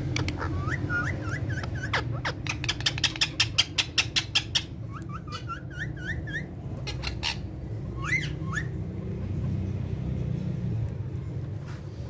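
Ringneck parakeets chirping in strings of short rising whistles, with a rapid run of sharp clicks, several a second, lasting about two seconds, and two louder calls later on, over a steady low hum.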